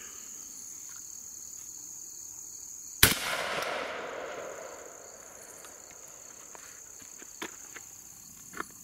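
A single shot from a Beretta 1301 Tactical 12-gauge semi-automatic shotgun firing buckshot, about three seconds in. The report echoes and fades over a second or two.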